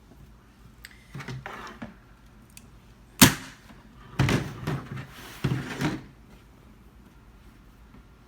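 Fabric rustling as it is folded over the stool's corner, then a single sharp staple gun shot about three seconds in, followed by more rustling handling of the fabric.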